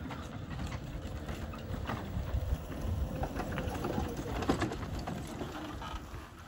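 Golf cart driving fast across bumpy grass and coming close by, with a low rumble and scattered knocks and rattles from the cart over the uneven ground. It grows louder toward the middle and eases off near the end.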